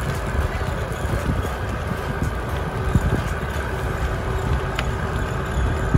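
Golf cart driving along a gravel road: a steady rumble of tyres, with wind on the microphone.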